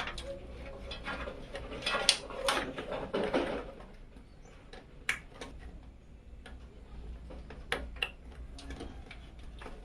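Scattered clicks and light knocks of PC parts and screws being handled and fitted, with a busier run of clatter about two to three seconds in.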